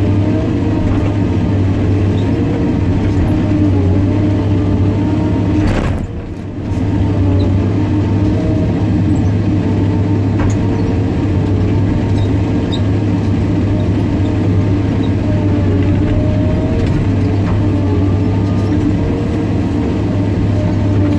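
Caterpillar 318D excavator's diesel engine running steadily under load, heard from inside the cab, with wavering whining tones from the hydraulics as the boom and arm move. A brief knock about six seconds in, followed by a short dip in the engine sound.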